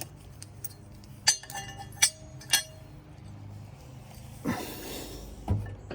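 Steel mower blade and its mounting hardware clinking against metal as the blade is fitted back onto the spindle: three sharp clinks with a short ring, about a second, two seconds and two and a half seconds in. A brief scraping rustle follows near the end.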